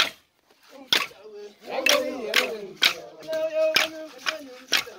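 Voices singing and calling with held notes, with sharp percussive strikes landing every half second to a second, after a brief hush at the start.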